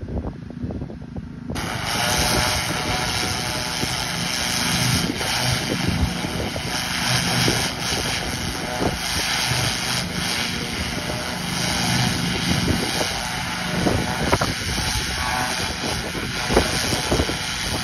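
A 3200 psi pressure washer with an oscillating nozzle, its motor running. About a second and a half in the spray starts: a loud, steady hiss of a cold-water jet fleshing a coyote hide.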